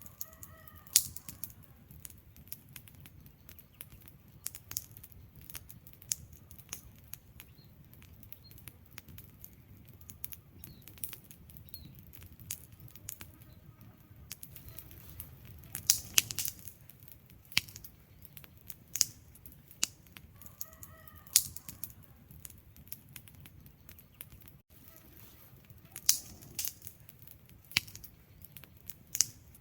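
Burning wood logs crackling: irregular sharp pops and snaps over a low, steady rumble of flame, with a thicker run of pops about sixteen seconds in.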